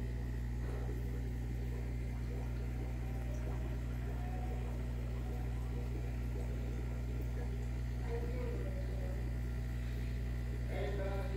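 Steady low electrical hum from aquarium equipment such as the filter pump, with faint voices in the background now and then.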